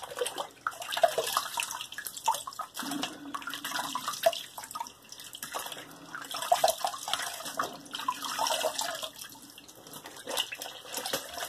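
Water splashing in a filled sink basin as hands scoop it onto the face, in uneven bursts with a short lull near the end: a post-shave rinse washing off the shaving lather.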